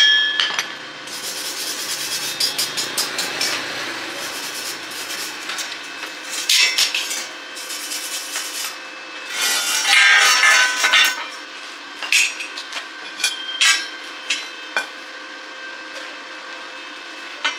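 Scraping or rubbing in quick strokes, in several bursts, the loudest about ten seconds in, with scattered clicks and knocks between the bursts.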